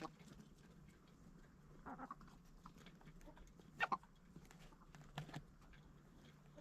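Chickens clucking, a few short separate calls a second or two apart, the loudest a little past the middle.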